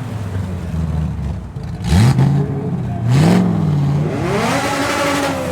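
A car engine running steadily, then revved: its pitch rises sharply about two seconds in, again about a second later, then climbs and falls once more near the end.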